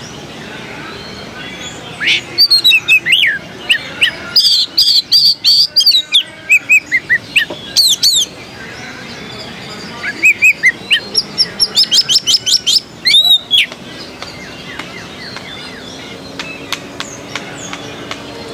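Oriental magpie-robin (kacer) singing loudly, in fast runs of repeated high whistled notes and rising and falling slides. The song starts about two seconds in and stops about fourteen seconds in, over steady background noise.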